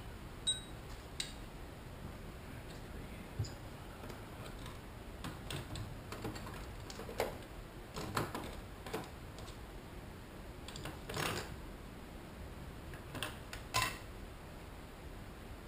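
Irregular light clicks and knocks of hand tools and parts being handled, a dozen or so spread out, with the sharpest about half a second in and near the end.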